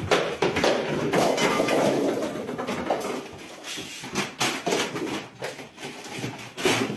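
A plastic bag crackling and rustling, with repeated knocks and thumps, as a cat wearing the bag scrambles over furniture.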